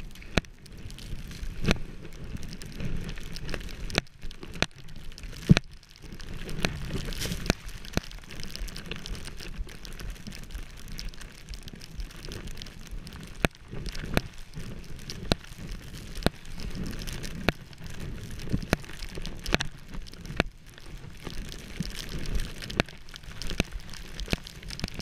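Skis running through deep powder snow: a steady rushing hiss broken by frequent sharp clicks and knocks.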